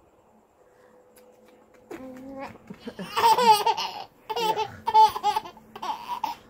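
Baby laughing in a string of bursts, starting about two seconds in after a quiet opening.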